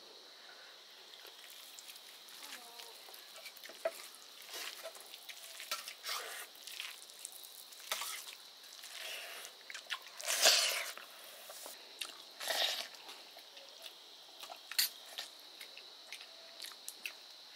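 Close-miked eating of rice and greens: soft wet chewing, lip smacks and mouth clicks at irregular intervals, with one louder wet sound a little past the middle.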